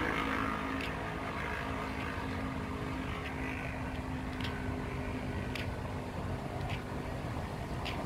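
Outdoor ambience with a low steady rumble and a pitched hum that fades out in the first few seconds. Light taps recur about once a second, in step with footsteps on a brick-paved path.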